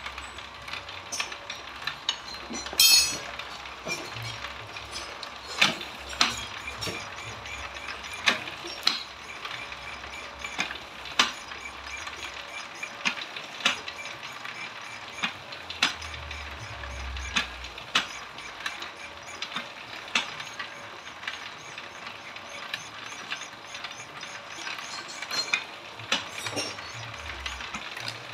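Motor-driven bamboo-slicing (irat) machine running with a steady mechanical whir as bamboo strips are fed through its rollers and sliced into thin slats. Sharp clicks and knocks come every second or so, the loudest about three seconds in.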